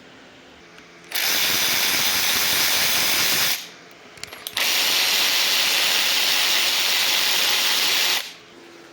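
A pressurised spray hissing in two long bursts of about two and a half and three and a half seconds, with a few faint clicks in the short pause between them.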